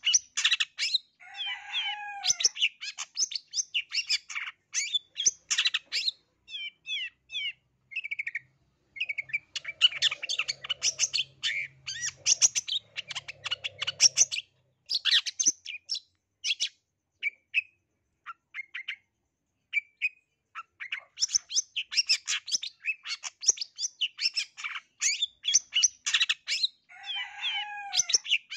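Caged long-tailed shrike (cendet, black-headed 'blangkon' form) singing a long, varied song full of mimicked bird calls. The song runs as rapid chattering phrases broken by short pauses, and twice a call glides downward in pitch.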